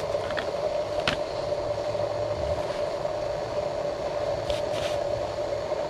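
Gas camp stove burner running with a steady hum, heating water for coffee. A couple of light clicks come about half a second and a second in, and a short scrape comes near the end.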